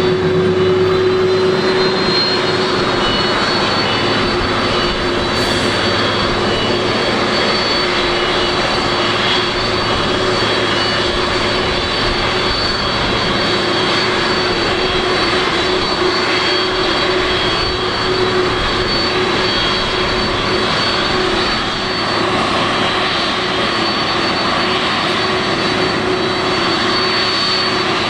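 Boeing 767-300 airliner's twin jet engines running steadily, a rushing jet noise with a high whine and a steady hum.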